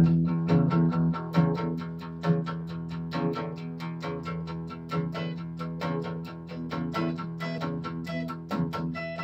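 Two acoustic guitars playing an instrumental intro, picked and strummed in a steady even rhythm, cutting in abruptly.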